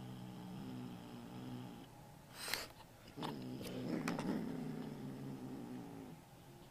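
Domestic cat growling in two long, low, wavering rumbles, a warning growl from a cat holding on to money it has taken. Between the rumbles, about two and a half seconds in, comes a short sharp noise, the loudest moment.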